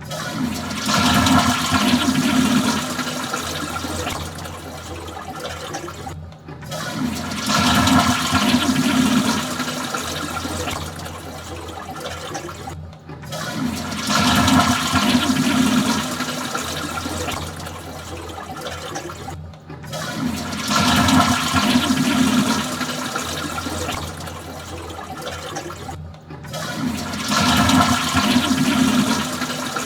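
Toilet flushing, heard again and again: each flush opens with a loud rush of water that tapers off over a few seconds, and a fresh flush starts about every six and a half seconds, five in all.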